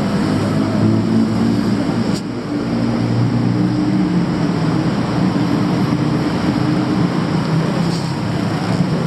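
City street traffic: a steady, loud hum of vehicle engines running close by.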